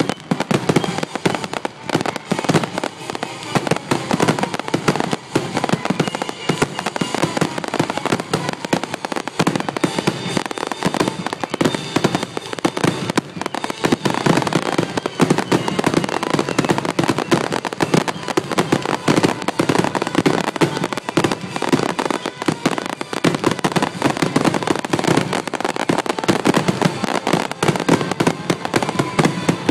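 Aerial fireworks display: a dense, continuous barrage of shell bursts going off in rapid overlapping bangs and crackles, with no pause.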